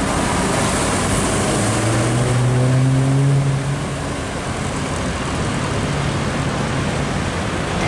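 Busy road traffic with a heavy diesel truck passing close by. Its engine note stands out and is loudest from about one and a half to three and a half seconds in, then settles back into the steady traffic noise.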